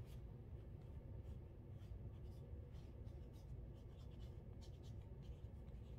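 Faint scratching of a pink crayon-like stick writing on a paper journal page, in many short irregular strokes as the letters are formed, over a low steady hum.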